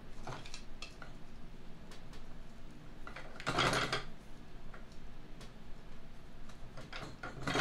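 Metal clinks and knocks as a stuck shaft is worked by hand in the red metal housing of a Snapper rear end, with one louder scraping rattle about three and a half seconds in.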